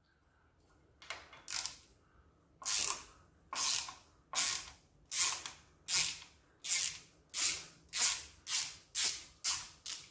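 Hand socket ratchet backing out a bolt on an engine's front timing cover: about a dozen back-swings, each a short burst of pawl clicks, coming quicker toward the end.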